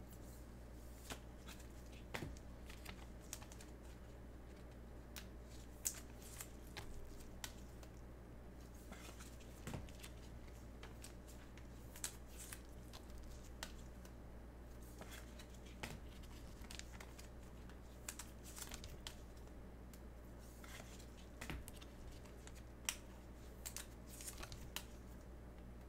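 Faint, irregular rustles and small clicks of trading cards and packaging being handled, with a few sharper ticks, over a steady low hum.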